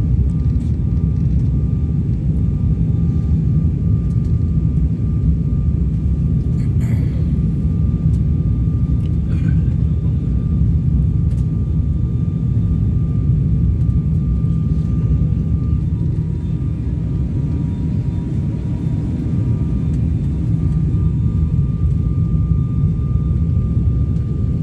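Cabin noise inside a US-Bangla ATR 72 turboprop in flight: a loud, steady low drone of the engines and airflow, with a faint steady higher hum held above it.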